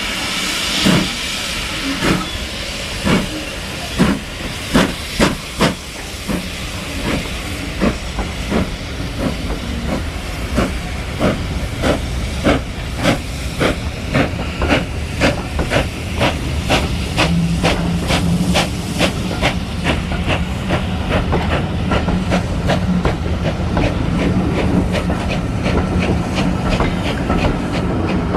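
Steam locomotive pulling away with a train of coaches: sharp exhaust chuffs that start about one a second and steadily quicken to several a second as it gathers speed, with steam hissing near the start.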